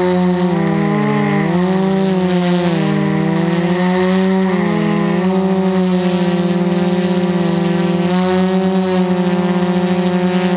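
Quadcopter's four electric motors and propellers buzzing in flight, heard close up from the craft's own camera. Several pitches weave up and down against each other for the first five seconds or so as the motors change speed to steer, then hold steadier.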